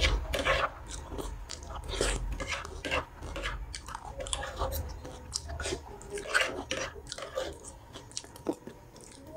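Close, loud chewing and biting of food, with many short crunches and small clicks throughout.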